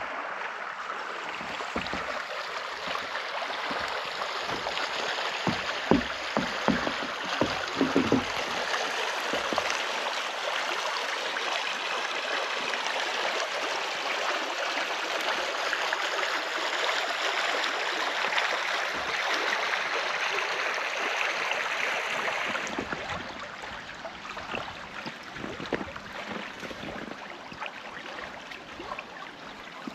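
Stream water running steadily below a footbridge, with a few low knocks about six to eight seconds in. The water sound drops away about three quarters of the way through.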